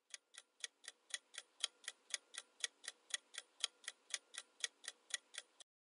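Countdown-timer sound effect: a clock ticking evenly, about four ticks a second, that stops shortly before the end.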